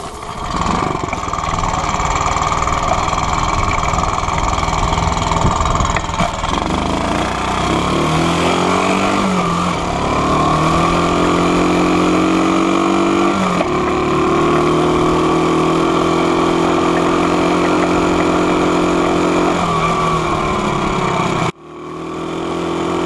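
Motorcycle engine running: rough at first, then its pitch climbs and settles in steps as it revs and pulls, with a sudden break near the end.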